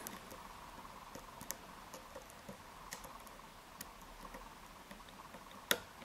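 Faint metallic clicking of a curved flag pick scrubbing the pins of an Abus EC750 Extra Classe dimple lock held under tension, with one sharper click near the end as the lock opens.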